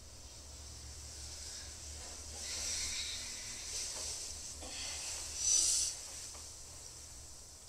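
A sleeping person breathing noisily, a few long breaths, the loudest about five and a half seconds in, over a steady low hum.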